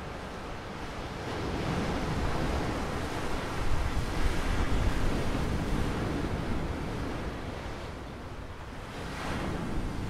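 Stormy sea waves breaking and washing ashore, with wind. The wash swells to its loudest about four seconds in, eases off, then another wave rushes in near the end.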